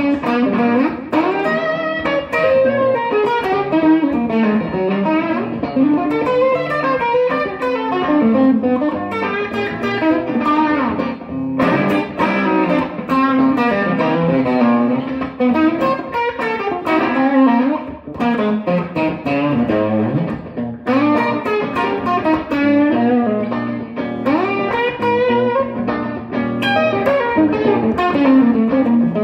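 Strat-style electric guitar improvising single-note lines with frequent string bends over a looped backing of the song's chord changes, recorded on a loop station.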